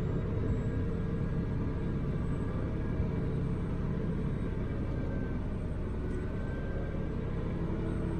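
Diesel truck engine running steadily, a low, even sound with no breaks.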